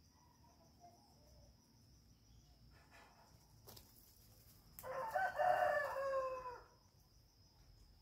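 A rooster crows once, about five seconds in, a pitched call lasting nearly two seconds. Under it a steady high insect trill, like crickets, runs on.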